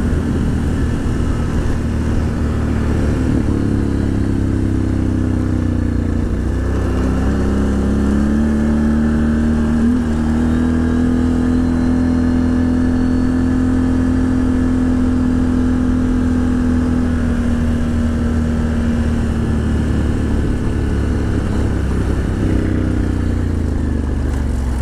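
Can-Am Outlander XMR 1000 ATV's V-twin engine running under way on a gravel trail, its pitch shifting up and down with the throttle in the first few seconds, holding steady through the middle, then dropping and picking up again near the end.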